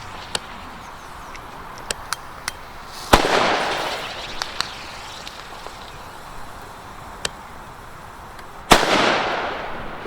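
Firecrackers (Böller) going off: two loud bangs, about three seconds in and near the end, each with a long echo trailing away, among several smaller sharp cracks.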